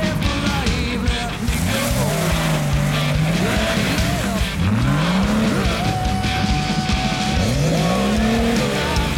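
Off-road vehicle engine revving up and down again and again, rising and falling in pitch several times.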